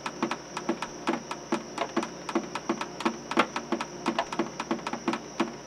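Synthetic soundtrack of a computer simulation: short, irregularly spaced clicks, about four to six a second, each with a brief low blip, over a steady high-pitched tone.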